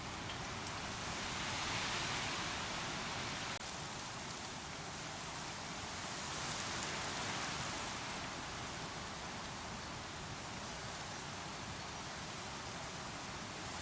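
Rushing water of the Wissahickon Creek: a steady, even hiss that swells slightly twice.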